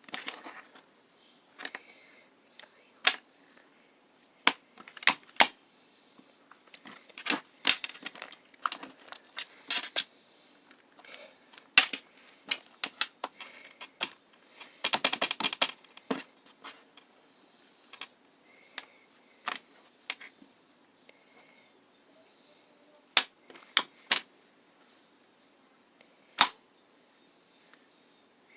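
Slime being squeezed and pressed by hand, giving irregular sharp clicks and pops, with a quick run of crackling clicks about halfway through.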